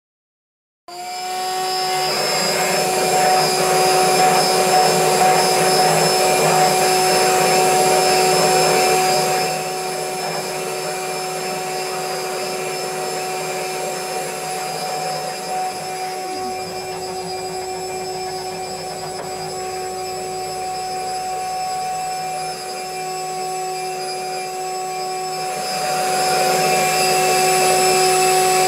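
CNC engraving spindle running with a steady whine while a freshly ground carbide D-bit cuts lettering into 2-ply ABS plastic, with a rough cutting noise over it. It starts about a second in, is louder for the first several seconds, softer through the middle and louder again near the end.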